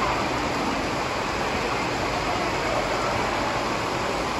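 Steady rush of running water at a water-park splash pool.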